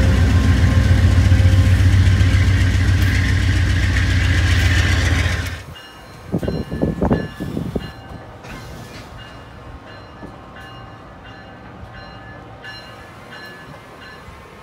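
A Shore Line East commuter train passing close by with a loud, steady rumble of wheels on rail, which cuts off abruptly about five seconds in. It is followed by an Amtrak Northeast Regional's passenger cars rolling past much more quietly, with a few low thumps soon after the cut.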